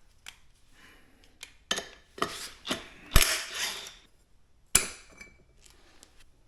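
Hand tools and metal motorcycle parts clinking and knocking during a rear sprocket swap, with two sharper metal knocks about three and nearly five seconds in.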